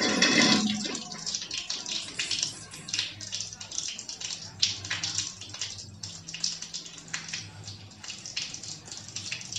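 Rain falling, with a heavier rush in the first second that then eases to a steady patter of many small strokes. Brief brushing and rubbing sounds come from hands massaging a bare back.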